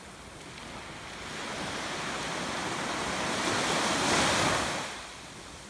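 A wave breaking and washing up a sandy beach: a rushing hiss that builds for a few seconds, peaks about four seconds in, then dies away.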